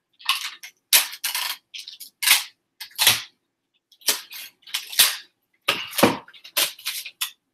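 Crinkly packaging being handled: a quick, irregular run of sharp crinkles and snaps, about a dozen in all.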